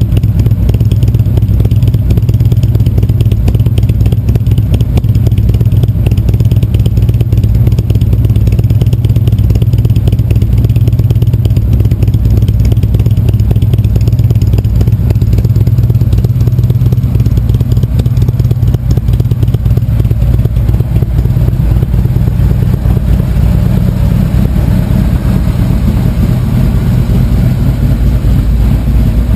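2015 Harley-Davidson Street Glide Special's air-cooled Twin Cam 103 V-twin running steadily, with no revving, through Vance & Hines Power Duals headers and 4½-inch High Output slip-on mufflers fitted with their baffles, and a Screaming Eagle open air cleaner. The exhaust note is loud and deep.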